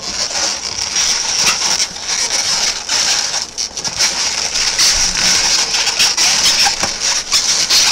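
Latex twisting balloons squeaking and rubbing against one another as they are twisted and tied together: a loud, dense run of short, high squeaks.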